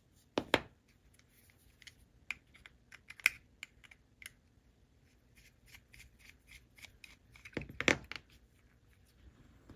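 A small jeweller's screwdriver clicking and scraping on a tiny brass screw as it is backed out of a wire terminal on a brass model-locomotive chassis, with light handling of the metal parts. Scattered soft clicks, with a sharper click about half a second in and another near the end.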